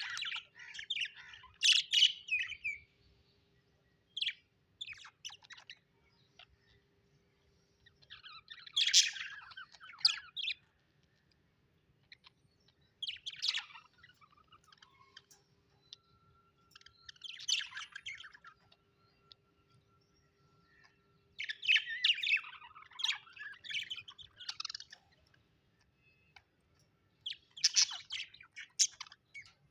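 Budgerigars chirping and chattering in short bursts of quick high chirps every few seconds, with brief pauses between, over a faint steady hum.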